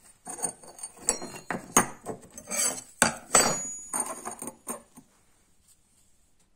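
Steel knife blanks being picked up and set down on a hard floor: a quick run of metal clinks, knocks and scrapes with a short ring, stopping about five seconds in.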